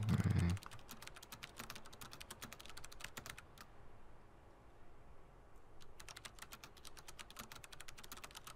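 Typing on a computer keyboard: a run of quick keystrokes, a pause of about two seconds, then typing again. A short low murmur of a voice is heard right at the start.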